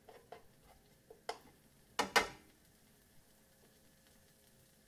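Black slotted spatula stirring in a nonstick frying pan: a few light clicks, then two louder knocks against the pan about two seconds in.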